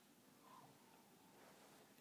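Near silence: room tone, with a faint brief sound about half a second in.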